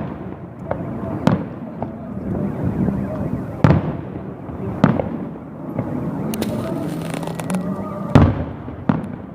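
Salute fireworks bursting overhead: a string of sharp bangs a second or a few apart, the loudest near the middle and near the end, with a stretch of crackling in between.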